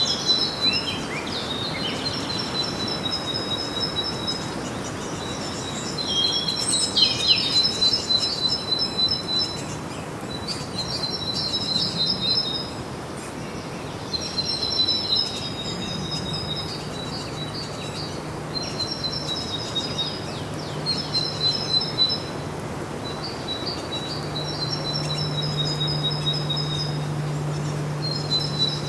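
Songbirds singing: high, trilled phrases a few seconds long, repeated with short pauses, over a steady background hiss. A low steady hum joins about halfway through and grows stronger near the end.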